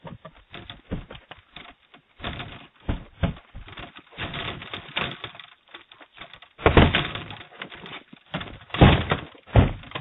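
Irregular thuds and knocks of a glass storm door moving against its frame beside a doorbell camera, the loudest about seven and nine seconds in, heard through the doorbell's narrow-band microphone.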